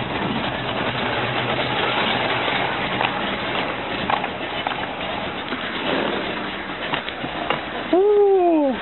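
A few light knocks against background noise, then about eight seconds in a car engine is started: a brief starter whine that rises and falls in pitch.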